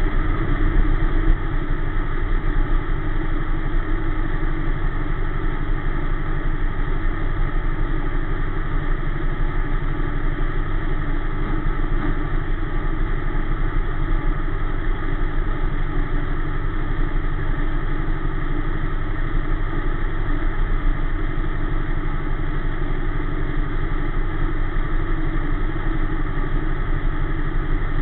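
Dirt-track sportsman race car's V8 engine idling steadily, heard from inside the cockpit, with no revving.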